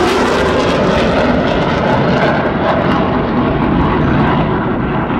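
Blue Angels F/A-18 Hornet jet flying past with a loud, steady roar; the high hiss fades after about three seconds as it moves away.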